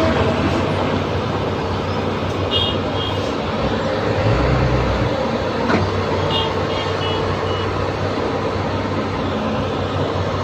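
Heavy diesel machinery running steadily while a dump truck tips its load of nickel ore, with a deep thump about four seconds in. Two short groups of high beeps are heard, about two and a half and six and a half seconds in.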